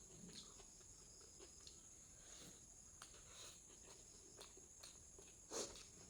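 Quiet close-up eating sounds: soft chewing and scattered small mouth clicks, with one louder short click about five and a half seconds in, over a faint steady high hiss.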